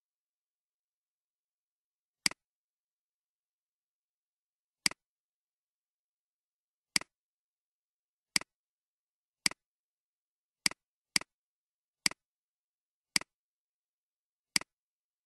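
Computer mouse clicks, ten in all at uneven intervals, each a sharp press followed at once by a softer release, with dead silence between them.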